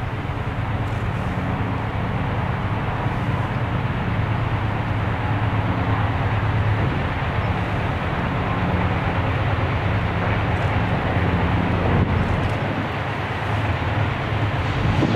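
Diesel locomotives of an approaching freight train, a GE B23-7 and an EMD GP9, running with a steady low engine drone that grows slightly louder as the train nears.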